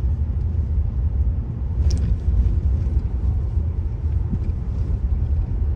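Steady low rumble of a car driving slowly: engine and road noise heard from inside the vehicle.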